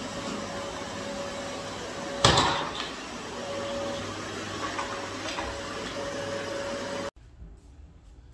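Canister vacuum cleaner running with a steady rushing drone and a faint hum, with one loud knock about two seconds in. The drone cuts off suddenly near the end.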